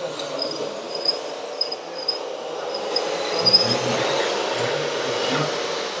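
Radio-controlled scale trucks and construction machines running: a steady whir of small electric motors and gears, with short high chirps now and then and a louder stretch from about three to four and a half seconds in.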